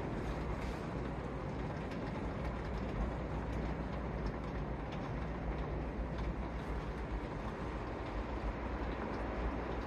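Hurricane-force wind blowing with heavy rain: a steady rushing noise with a deep rumble from the gusts buffeting the microphone.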